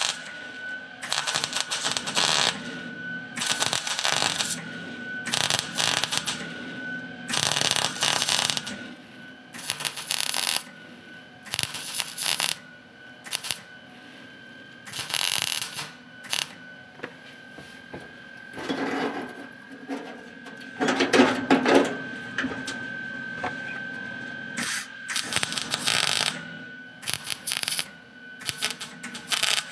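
MIG welder tacking sheet-metal body panels with spot welds and short stitches: a string of about fifteen short arc bursts, each up to about a second and a half long and a second or two apart, the loudest and longest just past two-thirds through. A steady high whine runs underneath.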